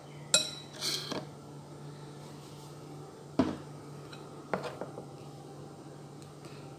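Short sharp knocks and clinks of a ceramic mixing bowl against plastic puto molds while batter is poured, several in a row: the loudest just after the start and about three and a half seconds in, with smaller ones around one second and near five seconds. A steady low hum runs underneath.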